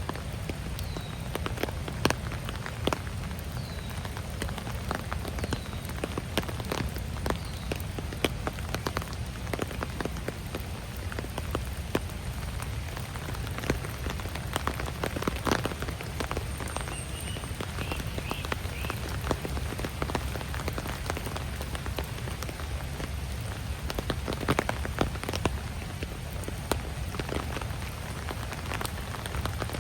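Steady rain falling, with many sharp drops tapping close by. In the first several seconds a bird repeats a short falling note about every second and a half, and a faint warbling call comes about two-thirds of the way through.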